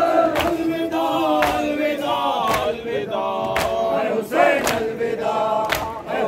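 A crowd of men chanting a nauha (mourning lament) together, with a loud collective chest-beat of matam about once a second keeping the rhythm.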